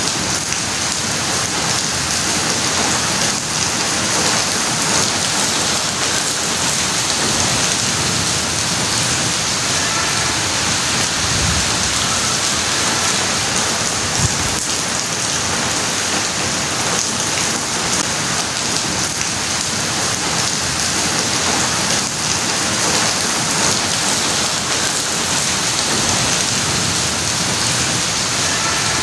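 Steady rain falling on garden trees, lawn and paving, an even, unbroken wash of drops.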